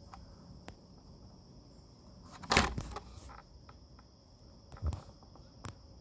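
Handling noise from a toy car's plastic blister pack held in the fingers: a loud crackling knock about two and a half seconds in and a few sharper clicks later, over a steady high-pitched background buzz.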